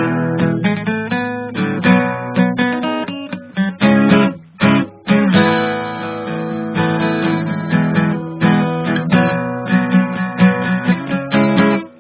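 Acoustic guitar music, strummed and plucked, with a couple of brief breaks about four to five seconds in.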